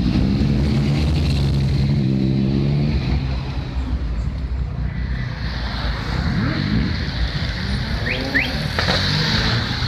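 Car engines rumbling as several cars drive slowly past one after another, with a couple of short revs in the second half and a brief sharp noise near the end.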